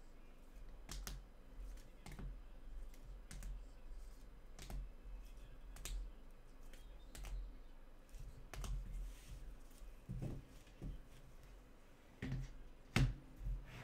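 Scattered light clicks and taps, roughly one a second, with a louder pair of clacks near the end.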